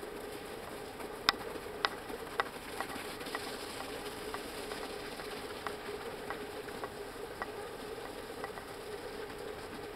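Footfalls clicking on icy, frozen ground at about two a second, the first three loudest, over a steady faint hum.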